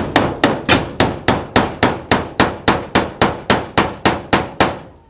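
A hammer driving a nail with a fast, even run of about eighteen strikes, nearly four a second, each with a short ring; the strikes stop near the end.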